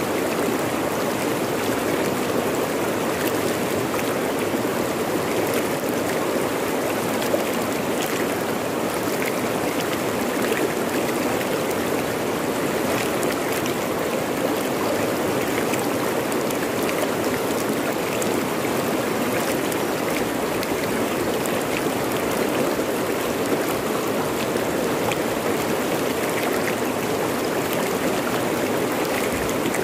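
Fast river flowing over rocks: a steady, even rush of water with small splashes scattered through it.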